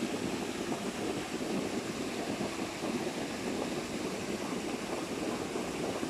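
Waterfall on a mountain stream rushing steadily, a continuous even water noise.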